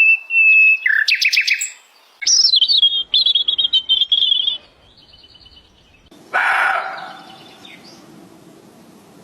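A bird calling: a short held whistle, a quick run of chirps, then a trill that falls in pitch and a fainter trill. About six seconds in comes a louder, rougher call that fades away.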